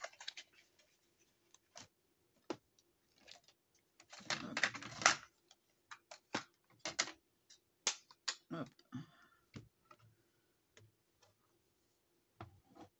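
Scattered clicks and taps of small plastic items being handled and set down on a craft desk, with a short, louder clatter about four to five seconds in.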